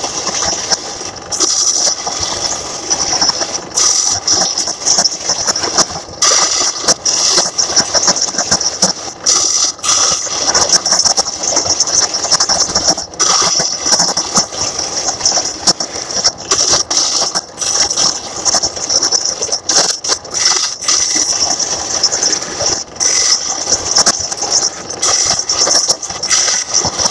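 Electric wood lathe spinning a heart pine handle blank while a turning tool cuts it, a continuous rough, hissing scrape. It drops out for an instant many times and comes straight back as the tool lifts off and bites into the wood again.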